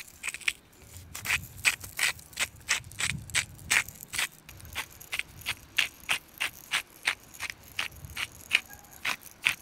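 Hand-held salt and pepper grinders being twisted, a steady run of crunching clicks about three a second.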